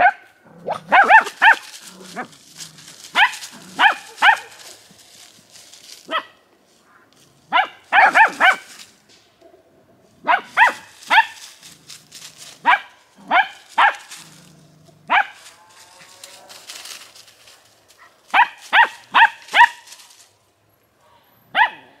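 Puppies yapping: short, high-pitched barks in quick runs of two to four, starting and stopping again and again.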